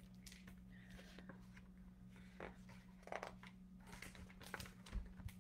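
Faint rustling and light clicks of a picture book's paper pages being handled and turned, with a few soft bumps near the end, over a low steady hum.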